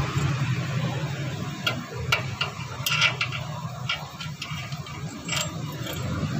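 Light metallic clicks and clinks, about eight scattered over a few seconds, as a new stabilizer end link is handled and fitted by hand into the front suspension. A steady low hum runs underneath.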